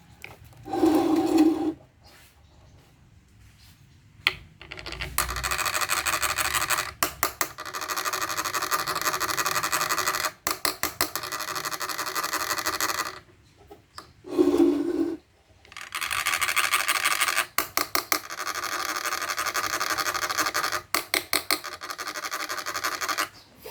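Long stretches of harsh rasping, scraping noise, about eight seconds each with brief gaps between them, and a short lower sound about a second in and again around fourteen seconds.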